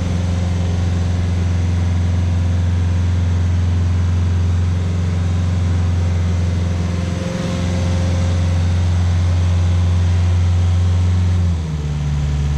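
Rayco RG50 stump grinder's engine running steadily. There is a brief dip about seven seconds in, and near the end the engine speed drops to a lower pitch.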